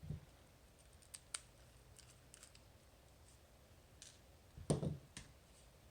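Faint, scattered light clicks of tiny lock pins and small tools being handled while a Medeco lock is taken apart, with one louder soft knock just before the end.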